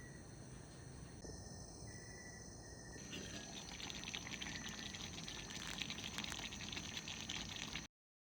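Faint outdoor ambience: a steady high-pitched insect-like drone over a low rushing noise, joined about three seconds in by a dense crackle of small clicks, cutting off abruptly near the end.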